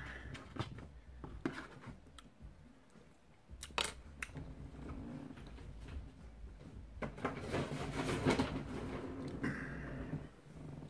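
Handling of takeout food and its paper wrapping: a couple of sharp clicks about four seconds in, then a longer stretch of rustling and scraping near the end.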